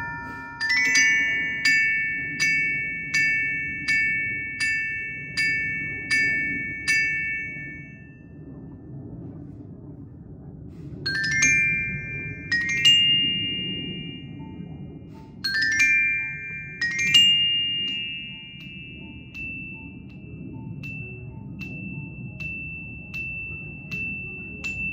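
Yamaha glockenspiel struck with two mallets: an even run of notes about every half second for several seconds, each left ringing. After a pause of a few seconds come slower groups of two or three notes, the last one ringing on for several seconds.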